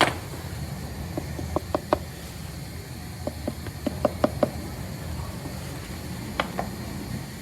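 Two quick clusters of short, sharp knocks, with a single knock later, over a steady low rumble.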